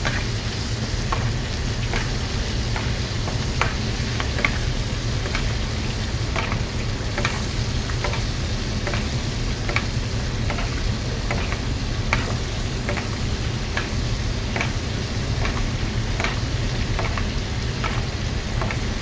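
A Chateaubriand, a thick cut of beef tenderloin, sizzling as it sears in a hot pan: a steady frying hiss with sharp pops of spitting fat about once or twice a second, over a steady low hum.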